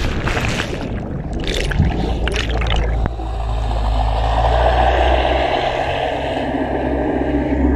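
Underwater sound of a diver's plunge into the sea heard from the submerged camera: bubbling, rushing water at first, settling after about three seconds into a steady low underwater rumble.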